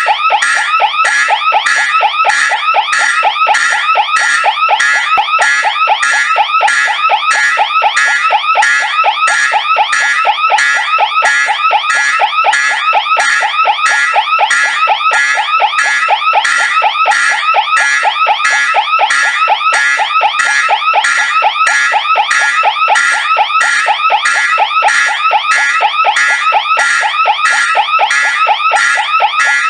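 Fire alarm sounding continuously: a loud, steady warble of pitch sweeps repeating a few times a second, unbroken throughout.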